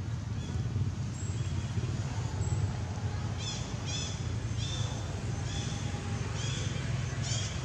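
A series of short, high chirping calls, repeated every half second to second from about three seconds in, over a steady low rumble.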